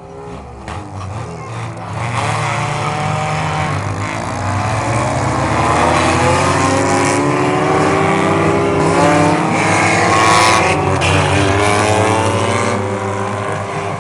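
Several Lightning Bug mini-class race cars accelerating together, their engines revving with many rising and falling pitches at once. The sound builds over the first two seconds and stays loud.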